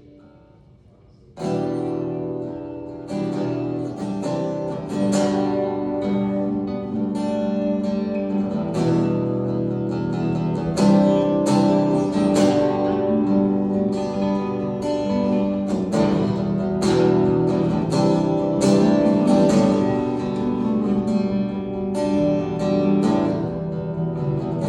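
Guitar strumming chords in a steady rhythm, starting about a second and a half in after a brief lull.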